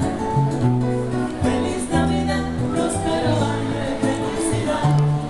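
Live band music, amplified: keyboard and guitar over a bass line that steps from note to note, with a voice singing.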